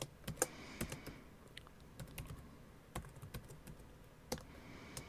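Typing on a computer keyboard: quiet, separate keystroke clicks at an uneven pace.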